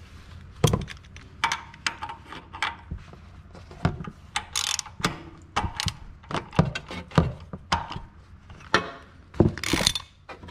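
Hand tools and metal parts being handled under a car: a socket and extension clicking and knocking against metal at irregular intervals, with two short scraping rushes about halfway through and near the end.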